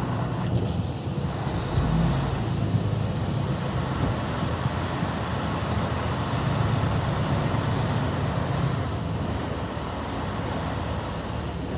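Semi-truck's diesel engine running with a steady low rumble, heard from inside the cab as the truck creeps forward.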